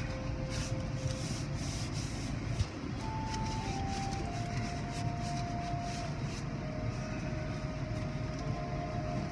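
Steady low noise of an idling car heard from inside its cabin, with faint music of slow held notes over it and a single short knock about two and a half seconds in.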